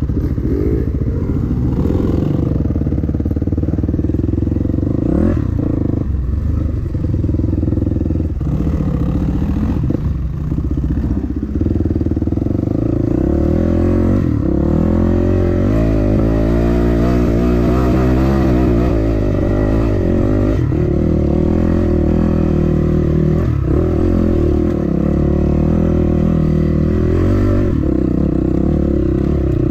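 Dirt bike engine ridden on a rough trail, heard close up from a camera on the bike: the revs rise and fall with the throttle, sag low around the middle and climb again, with occasional short knocks and clatter from the bike over the ground.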